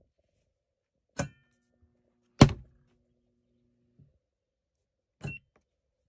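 Hard knocks from a portable top-loading washing machine's plastic lid and body. The loudest comes about two and a half seconds in, when the lid is shut over the tub, with a lighter knock before it and another near the end. A faint low hum follows the loudest knock for about a second and a half.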